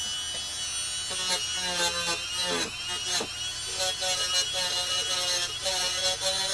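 Handheld rotary tool running at high speed, a steady high whine whose lower tones waver as the bit is pressed against the corroded metal battery tab to clean it.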